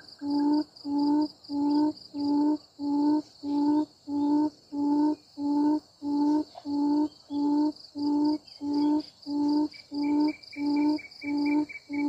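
Quail at a net trap giving a low hoot over and over, evenly, nearly two a second, over a steady high insect buzz. A faint rapid high chirping joins about ten seconds in.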